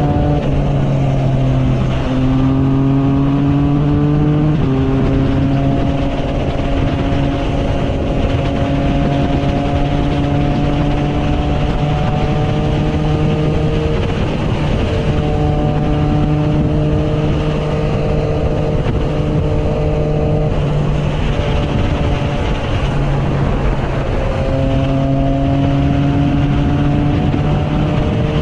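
Triumph Trident 660's three-cylinder engine through an aftermarket Zard exhaust, heard from the rider's seat while under way. Its pitch climbs slowly and drops back several times as the bike pulls through the gears, over steady wind and road noise.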